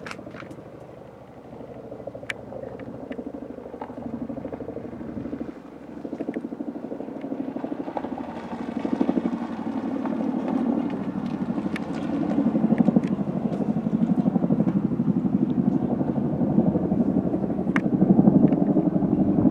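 Tandem-rotor Chinook helicopter flying over, its rotors chopping in a fast, even beat that grows louder about six seconds in and is loudest in the second half.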